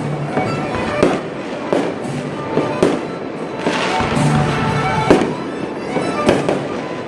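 Aerial fireworks bursting: a string of sharp bangs at irregular intervals, some followed by crackling, with music playing along.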